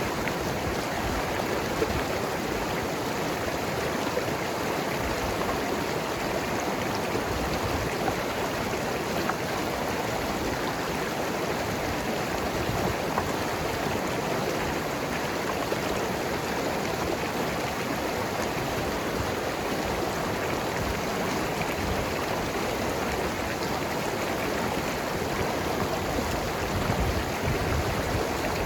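Mountain river flowing and gurgling over rocks: a steady, even rush of water.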